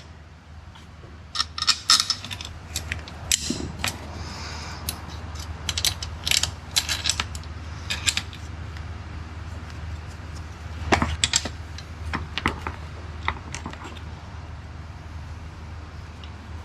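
Hand-tool work on the metal parts of a car's air suspension compressor: irregular clicks and clinks, coming in clusters, over a steady low hum.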